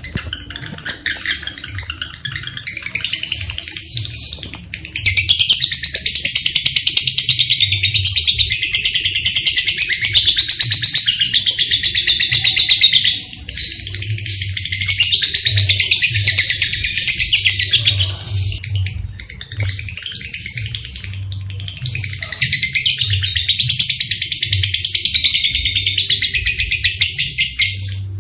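Lovebirds chattering in long, rapid, unbroken trills (the 'ngekek' call). There are three long runs of several seconds each, with softer chirps between them.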